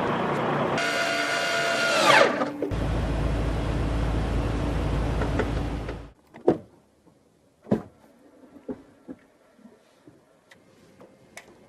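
A small electric motor whines over a steady rushing noise and winds down to a stop about two seconds in. The rushing noise cuts off suddenly about six seconds in, followed by a few scattered knocks and clicks.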